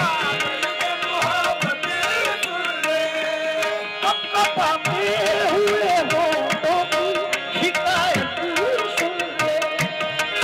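Qawwali music: a male lead singer sings with harmonium accompaniment, while a tabla plays a steady rhythm underneath.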